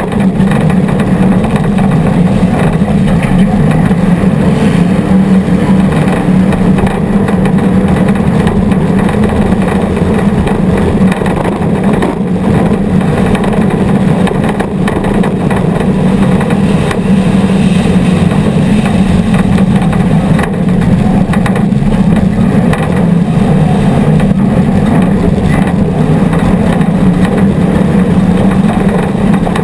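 Off-road race vehicle's engine running hard and steady at high revs, heard close up from an onboard camera.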